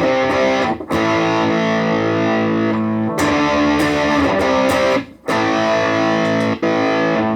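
Electric guitar (Vintage VS6) played through a Positive Grid Reactor 50 1x12 combo on its Crunch channel, with the heat control up one: distorted chords, each struck and left to ring, a new chord about every two seconds.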